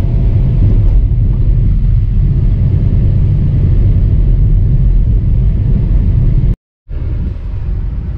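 Inside a moving Volkswagen Polo: heavy, low wind buffeting and road rumble coming through the open side window by the mirror, which the driver calls a lot of noise. It cuts out for a moment near the end, then resumes a little quieter.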